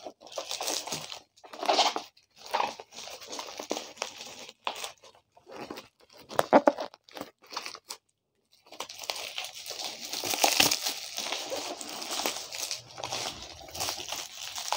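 Plastic packaging wrap being torn open and crumpled by hand, in irregular crinkling and ripping bursts, with a short pause a little past the middle.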